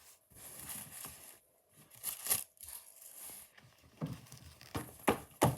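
Packaging being handled and torn open by hand: crinkling and tearing, with a few sharp louder crackles, one about two seconds in and two near the end.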